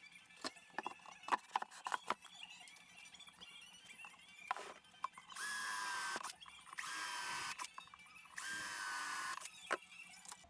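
Wooden parts knocking and clicking as they are handled, then a power drill driving screws in three runs of about a second each, its motor whining steadily, fixing blocks into the MDF box.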